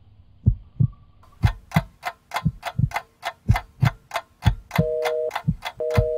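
Sound effects: a heartbeat thumping in pairs about once a second, joined about a second in by a clock ticking about three times a second, and near the end by a two-tone beep that switches on and off about once a second.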